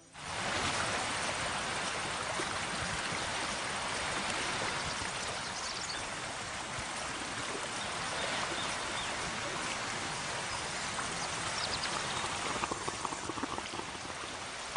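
Steady rushing of running water, like a stream or river, with an even hiss and no pitched sounds.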